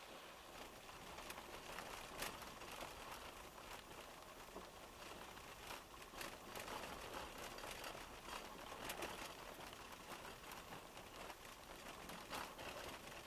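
Faint irregular clicks and crackles over a steady hiss, heard inside a moving car through its dashboard camera.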